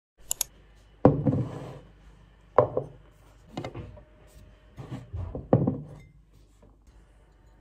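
A tall drinking glass and a bottle of red syrup being set down and shifted on a kitchen countertop: a sharp double click near the start, then about five knocks of glass and bottle against the counter over the next few seconds.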